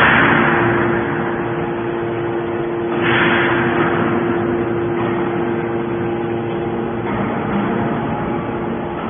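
Hydraulic scrap metal baler running: a steady hum from its motor and pump, with two louder rushing surges, one at the start and one about three seconds in.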